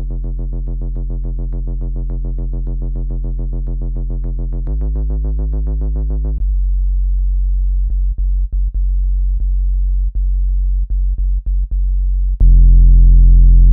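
Deep synthesized tones of the kind played to shake water out of a phone speaker. A low buzzing tone with many overtones shifts about five seconds in, gives way to a plainer low hum about six and a half seconds in that cuts out briefly several times, and a much louder deep tone takes over near the end.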